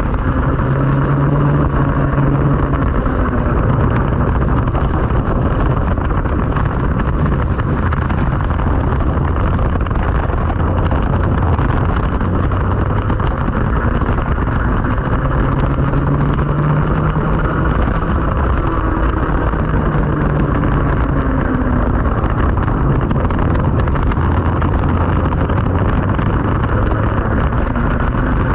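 Racing kart's two-stroke engine heard from a camera on the kart, its pitch rising and falling with the throttle through the corners, under a heavy steady hiss of wind and water spray.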